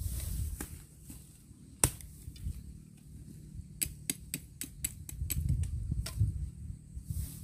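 Dry twigs and stalks snapping and crackling as they are handled among leaf litter: one sharp snap about two seconds in, then a quick run of about eight clicks and snaps near the middle, over a low rumble.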